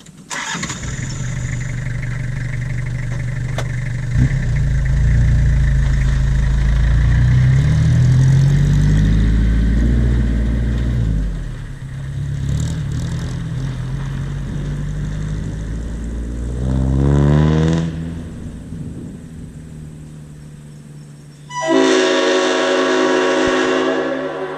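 Leslie RS5T five-chime locomotive air horn being test-blown on 160 psi of air, more pressure than it wants, so it overblows. Long blasts with the pitch sliding and wavering, then a clear chord of several notes held for about two seconds near the end, over a steady low hum.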